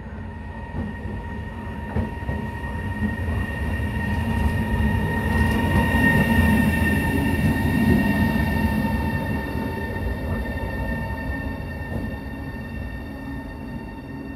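Siemens Vectron class 388 electric locomotive running past close by, with low rumble from its wheels and a steady high whine. It grows louder to a peak about halfway through, then eases off as it moves on.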